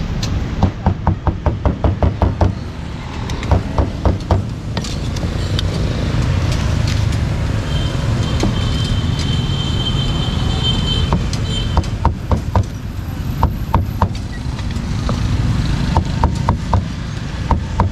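Butcher's cleaver chopping meat on a chopping block, in a quick run of chops about six a second, then shorter runs and single chops, over a steady hum of street traffic.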